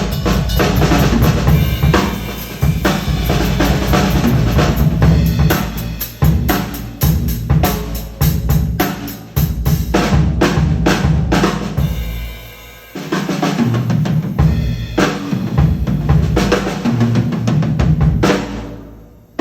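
1972 Ludwig Thermogloss drum kit with a Ludwig Jazz Festival snare being played: a busy stream of bass drum and snare strokes. The playing thins out briefly about two-thirds through, picks up again, and dies away near the end.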